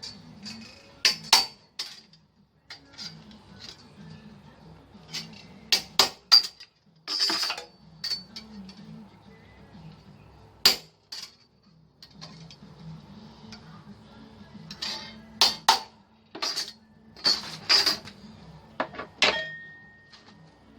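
Irregular sharp metallic clinks and knocks from hand tools and metal parts being worked, over quiet background music.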